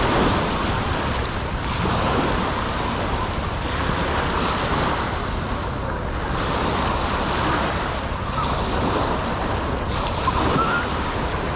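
Sea waves washing onto a beach, with wind rushing over the microphone; a steady, even noise throughout.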